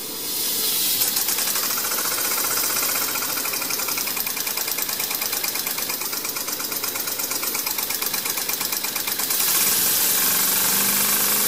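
Homemade steam engine running fast, chuffing in a rapid, even beat under a hiss of escaping steam. A little over nine seconds in, the beat fades and the steam hiss gets louder and steadier.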